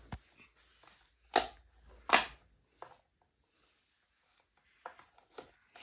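Wall switches on a switchboard being clicked by a baby: two sharp clicks, about one and a half seconds in and again just after two seconds, then a few fainter clicks near the end.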